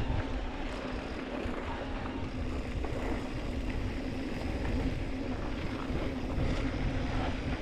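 Mountain bike rolling down a dry dirt singletrack: wind buffeting the chest-mounted camera's microphone, with tyre noise over the dirt, a steady low hum underneath and a few light rattles.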